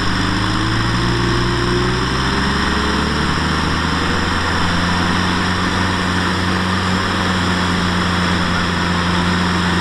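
Diesel engines of two Kubota M6040SU tractors running together at a steady speed. One engine's pitch climbs slowly over the first few seconds as it speeds up, then holds.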